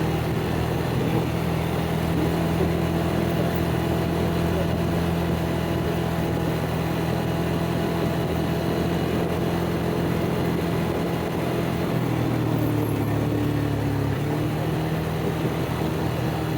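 ATV engine running steadily under way, its note shifting slightly about three-quarters of the way through.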